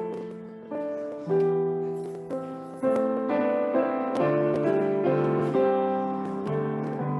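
Piano playing the slow chordal introduction to a hymn. Sustained chords are struck and left to ring, changing about once a second.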